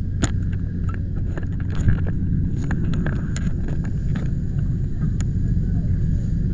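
Steady low rumble with wind on the microphone, broken by scattered light clicks and knocks.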